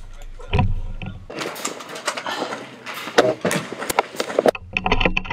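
Close handling noise from a rifle-mounted camera on an airsoft sniper rifle: a low thump, then a run of rustling, clicks and knocks, the sharpest about three seconds in.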